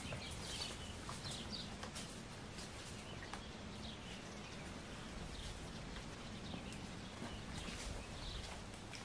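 Woodland ambience: small birds chirping now and then over a steady low rustle, with a few soft footsteps on the forest floor.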